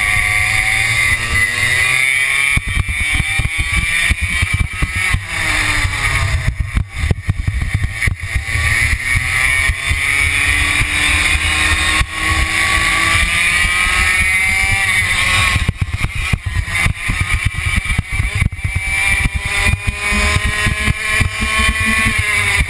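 Racing kart engine heard onboard, climbing in long rising pulls and dropping sharply about three times as the throttle is lifted for corners. Heavy wind buffeting on the microphone runs underneath.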